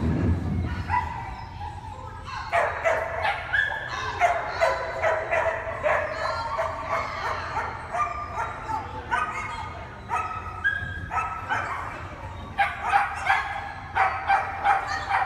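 A dog barking and yipping over and over in quick strings of short, high barks, with a low thud right at the start.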